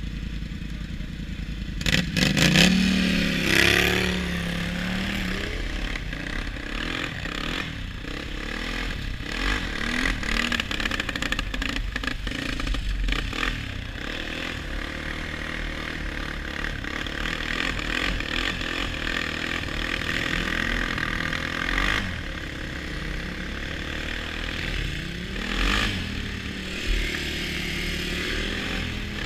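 ATV (quad) engine running under way and revving up several times, its pitch rising as the throttle opens, with a rattle of clicks and knocks about two seconds in.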